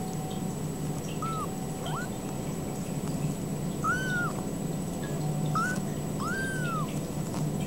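Ragdoll kittens mewing: about five short, high mews, the longer ones rising and falling in pitch, over a steady low hum.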